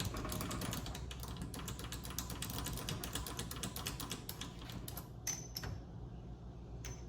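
Vevor MX400 mini lathe: rapid light clicking, many clicks a second over a steady low hum, as the tool is brought up to the screw in the chuck. The clicking thins out after about five seconds.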